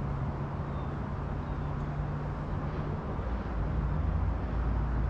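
Steady low engine hum under a noisy rumble, the hum dropping lower about three and a half seconds in.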